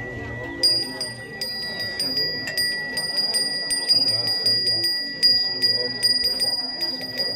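Balinese ceremonial hand bell (genta) rung continuously. Its clapper strikes about three or four times a second over a steady ringing tone.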